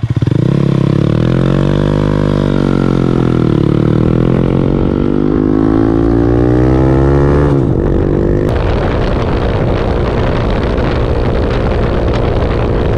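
Honda Monkey 125's single-cylinder engine pulling away under full throttle, its note climbing, easing a little, then climbing again. About two-thirds through it breaks off suddenly, then runs on at a steady pitch under heavy wind noise on the microphone.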